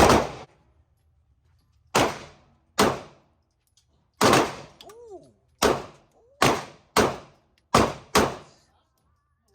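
A string of about nine gunshots at a shooting range, irregularly spaced roughly a second apart, two of them in a quick pair near the end. Each is a sharp crack with a short echoing tail.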